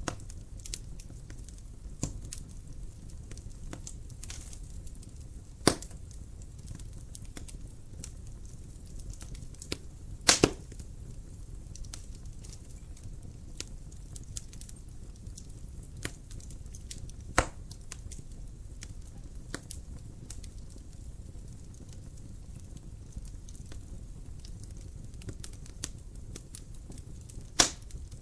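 Wood fire crackling in a fireplace: a low steady rumble of burning with scattered sharp pops and snaps, four of them much louder, about six, ten, seventeen and twenty-seven seconds in.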